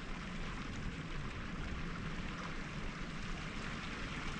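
Steady wash of water lapping and splashing against a sailboat's hull.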